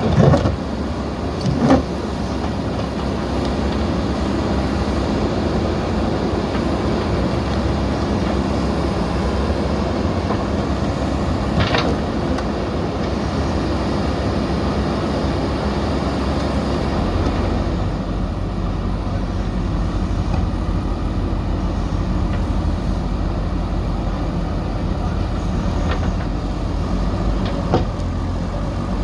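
Backhoe loader's diesel engine running steadily under work, its deep rumble growing heavier a little past halfway, with a few sharp metallic knocks.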